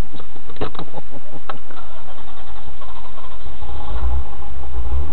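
Toyota 4Runner engine running, swelling into a loud low rumble about three and a half seconds in.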